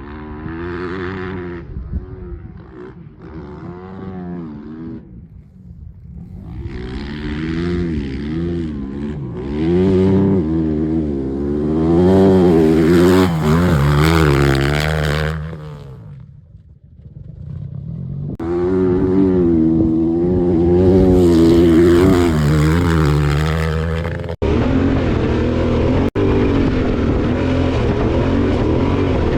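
Yamaha Ténéré 700 parallel-twin motorcycle engine under way, revs rising and falling through the gears. The engine sound fades to a low level twice as the bike eases off, then settles to a steadier drone near the end.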